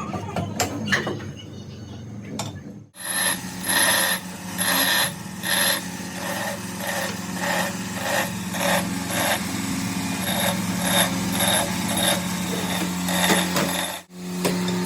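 A workshop power tool running with a steady hum and a regular pulsing, about one and a half beats a second, starting after a short break a few seconds in.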